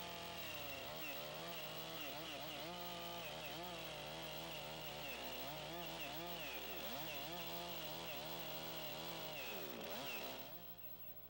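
Chainsaw ripping lengthwise into the end of a log to cut a tenon, its engine pitch wavering up and down under load. About ten seconds in the cut ends and the saw's sound drops away.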